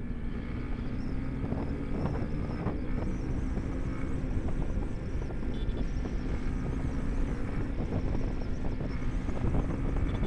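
Motorcycle engine running at a steady cruise, its tone holding and rising slightly, under a constant rush of wind and road noise.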